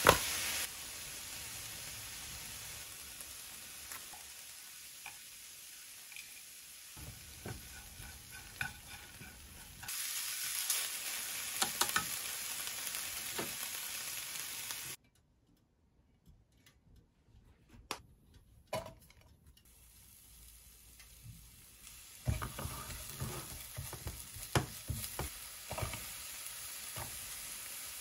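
Thin-sliced beef frying in a nonstick pan, sizzling steadily, with utensils stirring and tapping against the pan. The sizzle cuts out for a few seconds midway, then frying resumes with many more clicks and taps.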